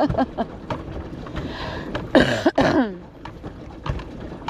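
Irregular clicks and knocks from a pedal boat under way, over a low rumble. About two seconds in, a person's voice gives one drawn-out sound that falls in pitch.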